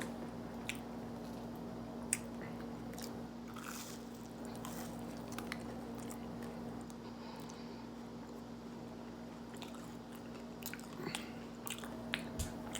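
Close-up crunching and chewing of crispy fried pickles coated in hot Cheetos, with scattered crisp crunches throughout. A steady low hum runs underneath.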